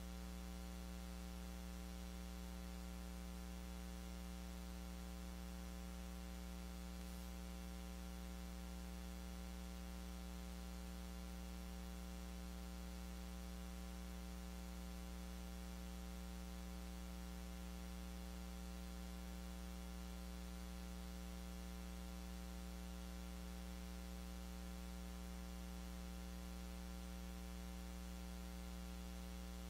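Steady electrical mains hum and buzz with many evenly spaced overtones over a faint hiss, unchanging.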